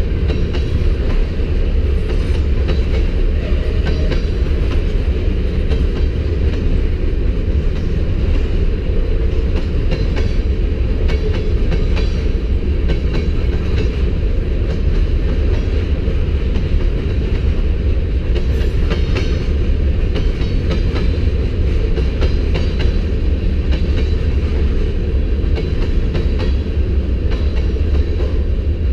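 Freight cars of a manifest train rolling past on the mainline: a steady, loud rumble of wheels on rail, with scattered faint clicks over it.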